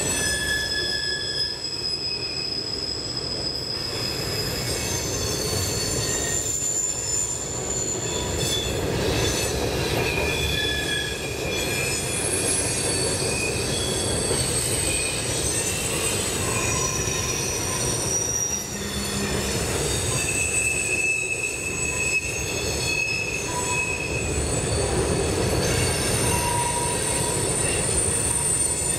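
Freight train rolling across a steel trestle bridge: a steady low rumble of steel wheels on rail, with high-pitched wheel squeals that come and go, several tones overlapping.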